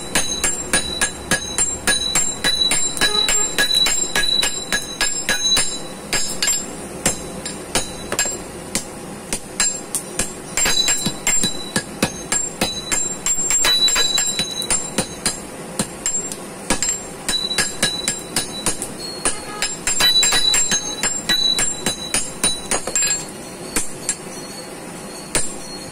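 Blacksmith's hand hammer and a helper's sledgehammer beating red-hot iron on an anvil: a fast run of sharp, ringing metal-on-metal strikes, a few a second, with short pauses. The hammering stops near the end.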